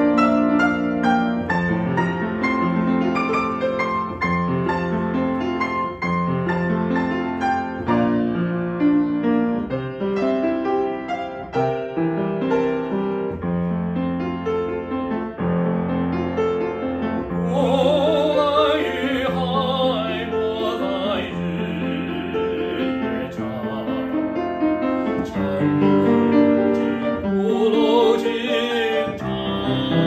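Upright piano playing an interlude alone; a little past halfway a man's voice comes in, singing a lyrical art song with a wavering vibrato over the piano accompaniment.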